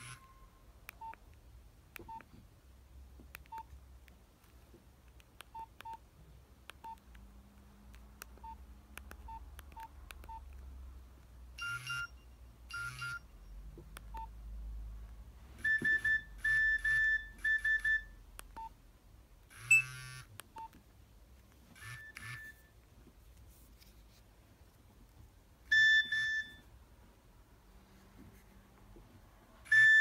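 Nokia 2720 fold mobile phone's keypad tones, faint short blips as keys are pressed, then its message alert tones previewing as each menu option is highlighted. First a pair of beeps, then a quick run of beeps, a short chirping burst, and single beeps.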